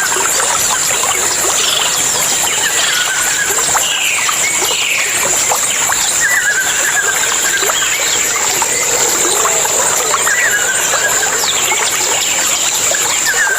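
Jungle nature ambience: a steady high-pitched drone with many short bird calls and chirps repeating over it, some notes falling in pitch.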